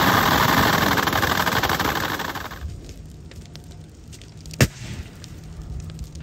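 Several MG-42 machine guns firing at once in one unbroken stream of rapid fire, which stops about two and a half seconds in. After it come faint crackles and a single sharp bang at about four and a half seconds.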